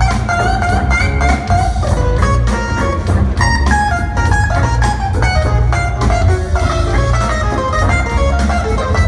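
Live jazz-funk band playing: a heavy bass line and drum kit with steady cymbal ticks, under a fast-moving lead melody.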